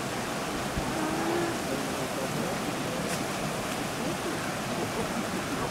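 Steady rushing of a shallow, flowing stream, with faint wavering voices in the background.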